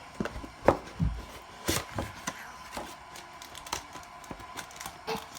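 Handling of a trading-card box and its packs on a tabletop: scattered light knocks, clicks and rubbing, with a dull low thump about a second in.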